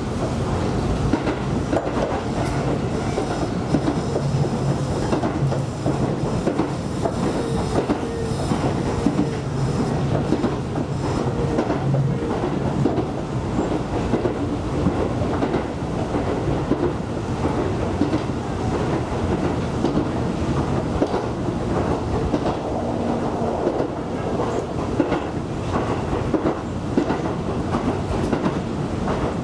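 Tobu Koizumi Line local electric train running along the line, heard from the front of the train: a steady rumble of wheels on rail with the clickety-clack of rail joints.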